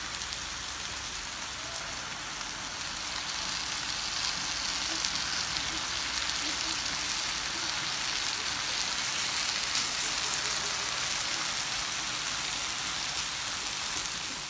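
Mala skewers of meat and mushrooms sizzling on a hot electric grill pan: a steady crackling hiss that grows a little louder about three to four seconds in.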